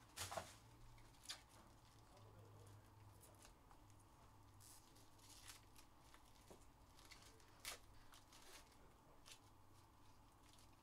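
Faint crinkling and tearing of a foil trading-card pack wrapper being pulled open by hand, with short sharp crackles scattered through it, the loudest just after the start and again about eight seconds in.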